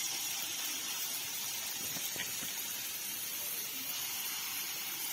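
Wheat-flour and semolina batter deep-frying in hot oil in a steel kadai: a steady sizzle as more ladlefuls of batter are poured in.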